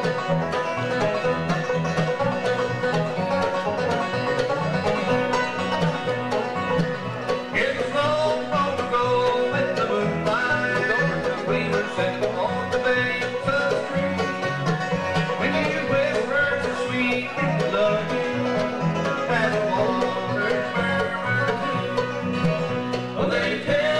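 Bluegrass band playing live: five-string banjo picking with mandolin, acoustic guitar and upright bass.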